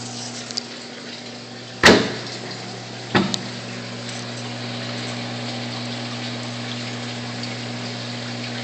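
Steady hum of the reef aquarium's pump, with water rushing through the sump and plumbing. Two sharp knocks cut in, about two and three seconds in.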